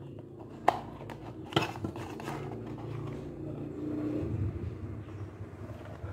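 Plastic drink cups being handled, with two sharp knocks, one under a second in and another about a second later, and fainter taps, over a steady low hum.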